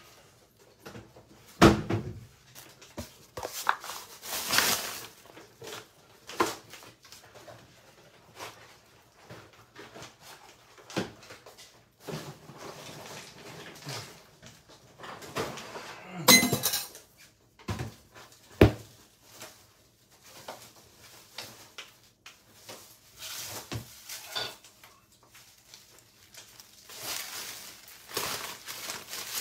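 Scattered kitchen clatter: bowls, dishes and utensils knocked and set down on a countertop, with irregular knocks and a ringing clink. The sharpest knocks come about two seconds in and again past the halfway point.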